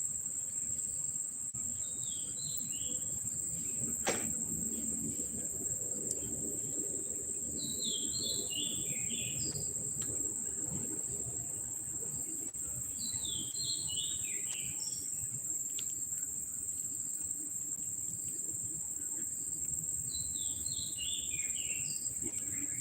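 A steady, high-pitched insect drone, over which a bird repeats a short run of descending notes four times, about every six seconds. A single sharp click comes about four seconds in.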